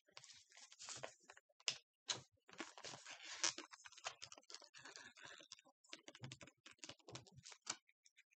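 Sardine tin being opened by hand: irregular small clicks and scrapes as the pull-tab metal lid is pried up and peeled back, with a denser stretch of scraping about three seconds in.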